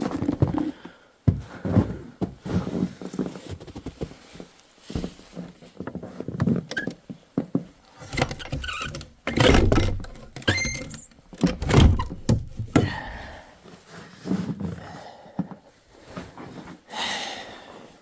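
Irregular thuds, knocks and rustling of someone coming in through the shelter door and moving about inside, with a cluster of heavier knocks about halfway through.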